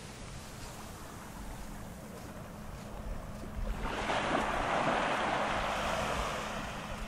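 Waves washing onto a sandy beach, a wave breaking and rushing up about four seconds in and then fading. A faint steady hum runs underneath.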